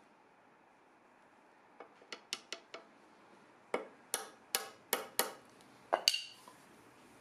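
Steel-headed hammer striking the handle of a chisel, chopping into the end grain of a walnut stool leg. About five light taps about two seconds in, then about seven harder blows, each with a short ringing tail.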